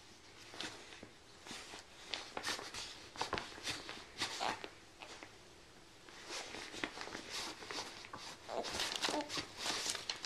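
Paper rustling and crinkling in irregular swipes as a baby's hands bat at it, mixed with the soft rustle of his sleeper against the pad. The swiping comes in two spells with a short pause in the middle.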